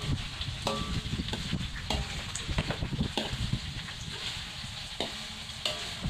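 Spices and leaves frying in a hot wok with a steady sizzle, while a wooden spatula stirs and scrapes against the wok, with scattered knocks.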